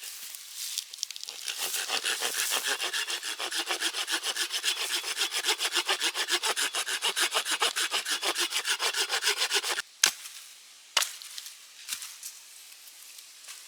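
Hand saw cutting wood in quick, even strokes, about four a second, that stop abruptly nearly ten seconds in. A few separate sharp knocks follow.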